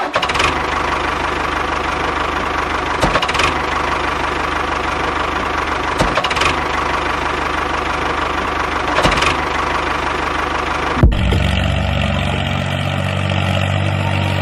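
Tractor engine running steadily, with a faint knock recurring about every three seconds. About eleven seconds in, the sound cuts sharply to a smoother, steadier engine hum with a clear pitch.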